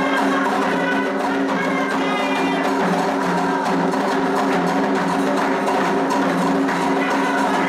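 Candomblé toque: hand percussion keeping a steady repeating beat, with sharp wood-block-like strikes, under a group singing together.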